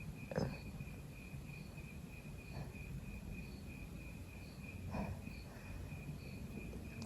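A person with a cold sniffing faintly, about half a second in and again about five seconds in. Under it runs a steady, high, pulsing chirp.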